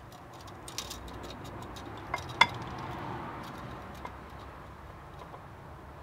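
Faint, light metallic clinks and taps as a steel tape measure is held against a drilled and grooved brake disc, with a sharper clink about two and a half seconds in.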